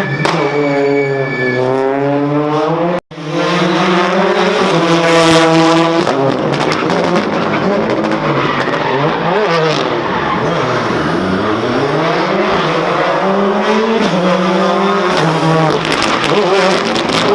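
Rally car engines revving hard, their pitch climbing and dropping over and over as they go through the gears. The sound cuts out for an instant about three seconds in.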